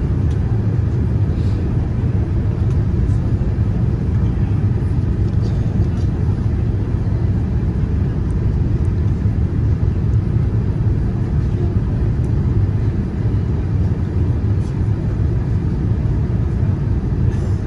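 Steady low rumble inside the cabin of a Boeing 787-9 airliner in motion, even and unchanging throughout.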